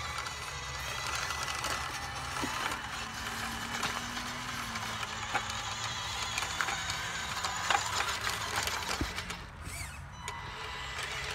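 Electric drive motor and gearbox of a radio-controlled Diecast Masters Western Star dump truck whirring as it drives, with small clicks from the tyres on grit.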